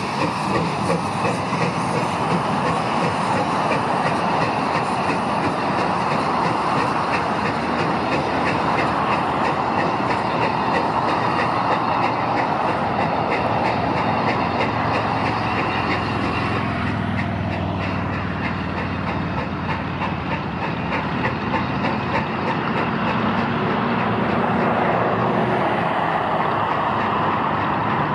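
Glenbrook, a 3-foot narrow-gauge 2-6-0 steam locomotive, running past under steam with its exhaust chuffing in a steady rhythm, steam hissing and the wheels clicking over the rail joints as it pulls a loaded passenger car along the track.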